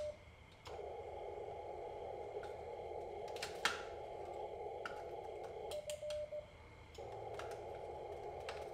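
Icom IC-7300 in CW mode: the receiver's narrow-filtered static hiss, broken about six seconds in by a short run of steady Morse sidetone beeps as a newly made 3D-printed Morse key is keyed. Light clicks from the key run throughout, with one sharper click about three and a half seconds in.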